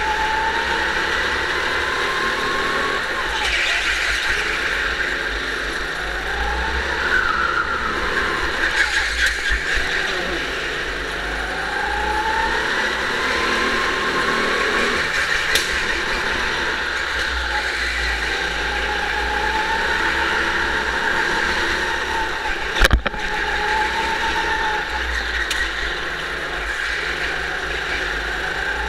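Go-kart being driven hard around an indoor track, heard from onboard through a waterproof camera case: a whining drive note that rises and falls again and again as the kart speeds up and slows for corners, over a steady low rumble. One sharp knock about two-thirds of the way through.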